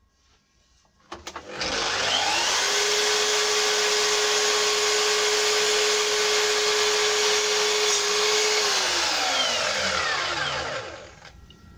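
Festool Kapex sliding mitre saw crosscutting a tulip (yellow poplar) board at an angle. The motor is switched on about a second in and whines up to full speed, then runs steady through the cut. Near the end it is switched off and its whine falls away as the blade spins down.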